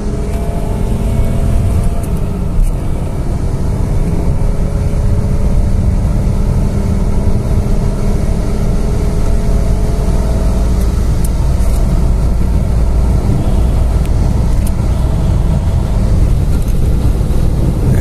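Fiat Marea's inline five-cylinder Fivetech engine running under light acceleration, heard from inside the cabin over road and tyre noise. Its note climbs slowly in the first few seconds, then holds steady.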